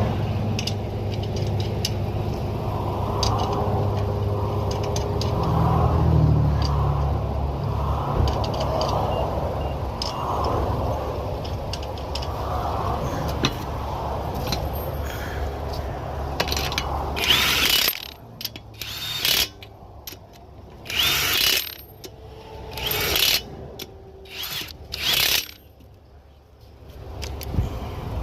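Steady rumble of highway traffic, then about six short bursts of a power tool, each under a second, near the end. This fits an impact wrench spinning lug nuts off or on a car wheel during a roadside tyre change.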